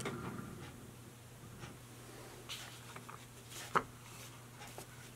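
Faint taps and clicks of hands handling a small walnut box and opening its hinged lid, the sharpest click coming a little under four seconds in, over a low steady hum.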